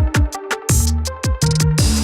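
Electronic music with a heavy beat: deep bass hits that slide down in pitch, sharp hi-hat ticks and held synth chords.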